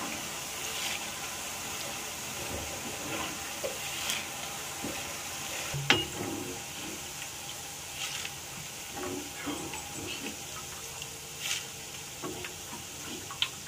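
Boondi (gram-flour batter drops) sizzling as they deep-fry in hot oil in a kadai, with metal spoon and strainer scraping and clinking against the pan. One sharp metal clink about halfway through is the loudest sound.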